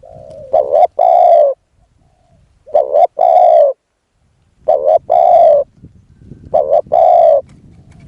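Spotted dove cooing close by, four calls about two seconds apart. Each call is a short note or two followed by a longer coo.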